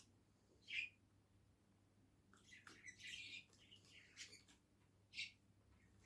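Pet budgerigar giving faint, short, high chirps, one about a second in and one near the end. In the middle there is a busier run of chirps and small water sounds as it steps down into a shallow dish of water to bathe.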